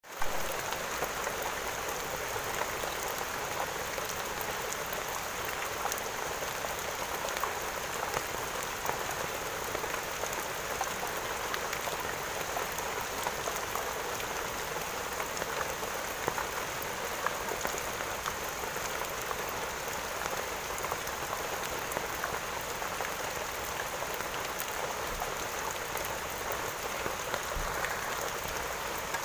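Steady rain falling, with many small drop impacts pattering through a constant hiss.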